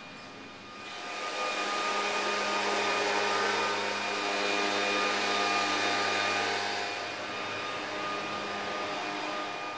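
A motor running steadily with a whirring hum, swelling up about a second in and dropping away near the end.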